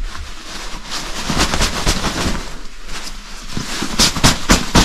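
Sleeping bag fabric rustling in a run of irregular scrunches as it is stuffed by hand into a compression sack.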